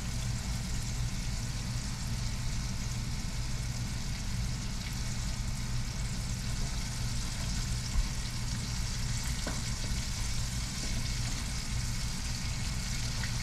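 Breaded catfish pieces deep-frying in hot oil in a cast iron pot, giving a steady sizzle, with a low steady hum underneath. A single sharp tap comes about eight seconds in.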